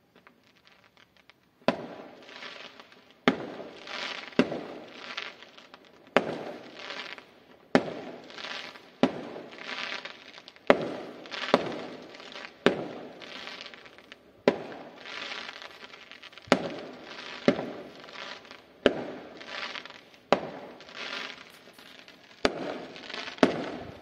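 Aerial fireworks bursting one after another: a sharp bang every second or so, each followed by a rough tail of sound that fades within about a second. The bangs start about a second and a half in.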